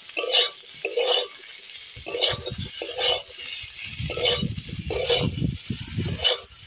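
A wooden spatula scrapes and turns chunks of fried potato and taro around a metal kadai in repeated strokes, about one a second. This is the spices being sautéed (kosha) into the vegetables in oil, with a light sizzle under the scraping.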